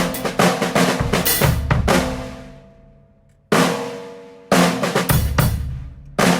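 Drum kit being played to test a Peace snare drum: quick runs of snare and kick hits, a struck note that rings out and fades to a brief lull, then playing starts again about three and a half seconds in.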